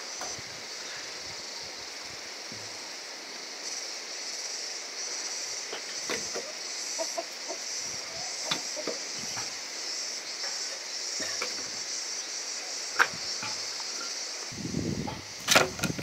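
Chickens clucking now and then over a steady high hiss, with scattered clicks and a few sharp knocks, the loudest near the end.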